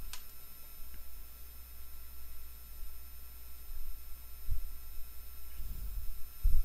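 Steady electrical hum with faint high-pitched whining tones, a short click at the start and a few soft low thumps near the end.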